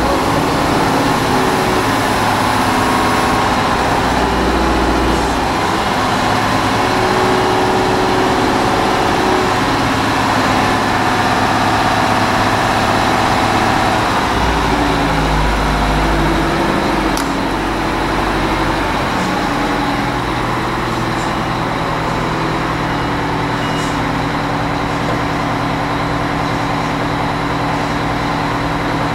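Heavy diesel truck engine (the M1070 HET's Detroit Diesel 8V-92 two-stroke V8) running after its first start in many years, its speed wandering up and down at first and then settling to a steady idle about two-thirds of the way through.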